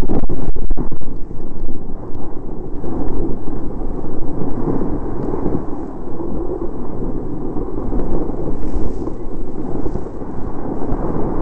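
Wind rushing over the microphone of a camera carried down a ski slope: a loud, low rumble with the scrape of sliding on snow mixed in. A few sharp knocks come in the first second.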